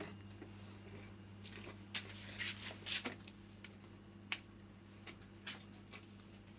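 Faint scattered clicks and rustles of an extension board's plastic parts being handled and fitted back together, over a steady low hum.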